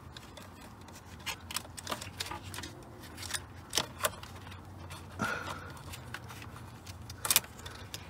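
Irregular light clicks and rattles of a plastic steering-column combination switch and its wiring being handled, with a sharper cluster of clicks about seven seconds in.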